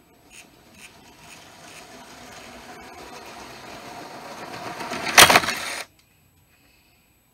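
Lego train rattling along plastic track, the clatter growing steadily louder, then a loud crash a little after five seconds in; the sound cuts off suddenly half a second later.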